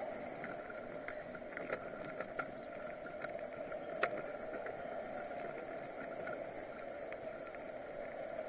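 Steady rolling noise of a bicycle riding over asphalt, with light rattling clicks from the bike and one sharper click about four seconds in.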